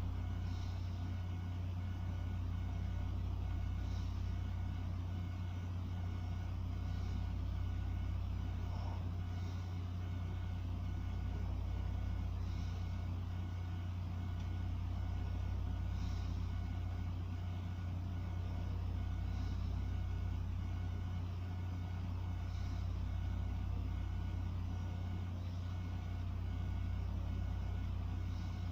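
Sleeping person's slow, rhythmic breathing, about one breath every four seconds, over a steady low hum.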